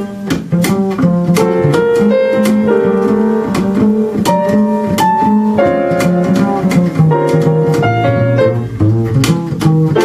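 Live jazz: an upright double bass plucked, with piano chords alongside.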